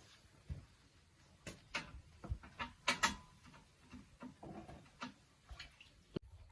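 Irregular light knocks and clicks of tools and parts being handled while a motorcycle tire is changed, the loudest about halfway through.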